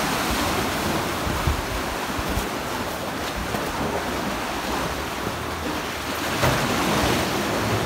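Sea water washing against the rocks and into the sea-cave arches, a steady wash, with wind buffeting the microphone.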